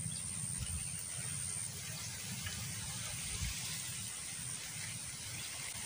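Quiet outdoor background: a steady low rumble with a faint, thin high tone that comes and goes.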